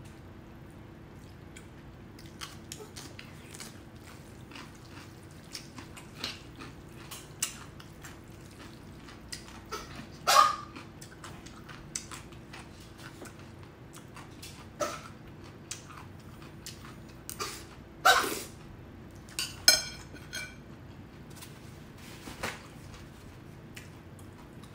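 Close-up eating sounds of noodles being slurped and chewed, with small wet mouth clicks and smacks throughout. A small dog barks briefly a few times, once about ten seconds in and again around eighteen to twenty seconds in; these barks are the loudest sounds.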